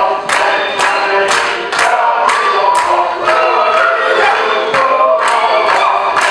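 Czech or Slovak folk dance music with a choir singing over a steady beat of about two strokes a second.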